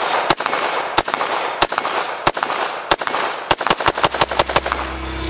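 Noveske NSR mid-length AR-15 rifle firing: single shots about two-thirds of a second apart, then a quicker string of shots about three and a half seconds in. Electronic music with a steady beat fades in near the end.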